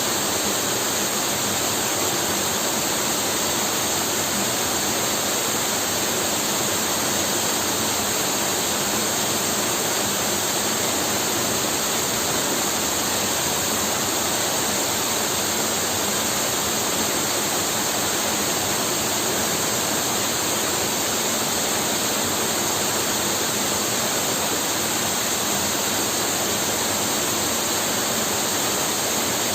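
Waterfall pouring into a pool: a steady, loud rush of falling water that does not change.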